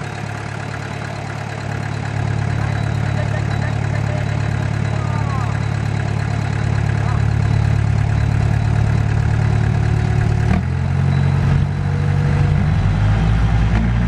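Small crawler bulldozer's diesel engine running steadily, getting louder about two seconds in. Its note changes abruptly about ten and a half seconds in and begins to rise near the end.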